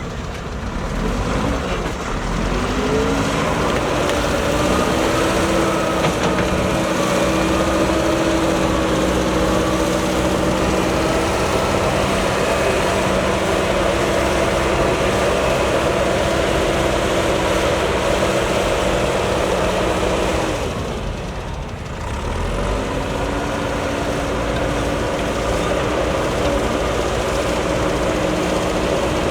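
JCB backhoe loader's diesel engine running under throttle. Its pitch rises in the first few seconds and then holds steady. A little past three-quarters of the way through it drops away briefly, then picks up again with a rising pitch.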